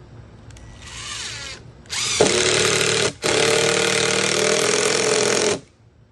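Power drill driving a screw into the wooden bench frame: a short burst, then a longer steady run of about three and a half seconds with a brief stop partway through.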